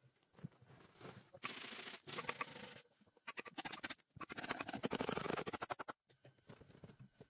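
Hand adze hewing and scraping bark from a log: quick scratchy strokes of steel on wood in two runs, the second louder, then a few scattered knocks after a sudden stop.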